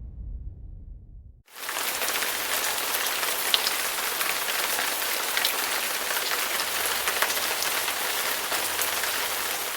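Steady rain falling, pattering on a surface, from a stock sound effect. It starts abruptly about a second and a half in, cutting off a low rumble.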